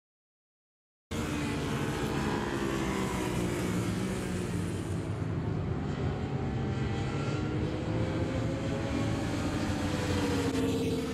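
About a second of silence, then several sport motorcycles' engines running at speed on a racetrack, their notes rising and falling as they ride into a corner. Near the end one engine sounds closer, its pitch falling.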